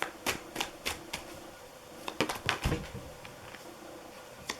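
Tarot cards being shuffled and handled: a series of sharp card clicks and snaps. Four come in quick succession, then a cluster about two seconds in, and one more near the end.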